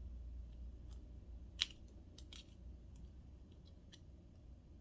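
A few light clicks of small metal parts of a Kenmore sewing machine's clutch being handled while a tiny spring is fitted by hand. The sharpest click comes about a second and a half in.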